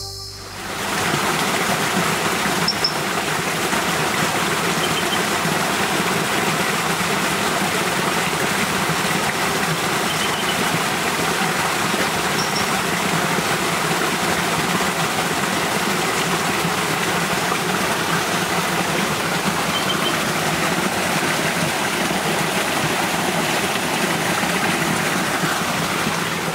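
Steady rushing of a stream's water, an even noise without pitch, with a few faint, short, high chirps now and then.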